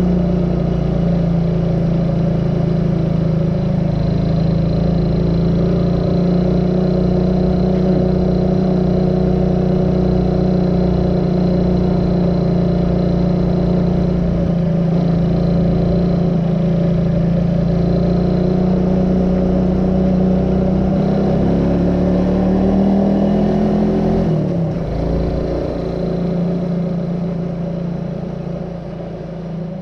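Small motorbike's engine running steadily under way, heard from the handlebars. About 24 s in it revs up briefly, then drops off and gets quieter as the throttle is closed.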